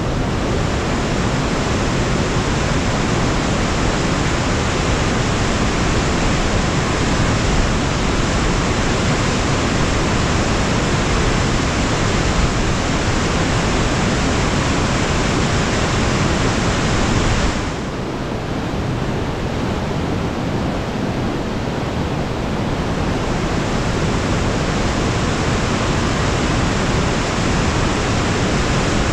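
Swollen mountain creek rushing through whitewater rapids below a waterfall: a steady, loud wash of water noise that softens a little a bit past halfway, then builds back.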